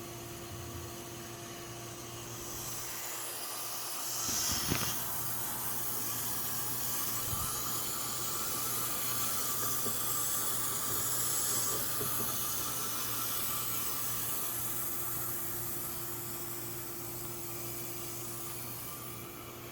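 Water hissing as it runs into the repaired fuel tank to fill it for a leak test. It swells in a couple of seconds in, with a single knock soon after, and eases off near the end.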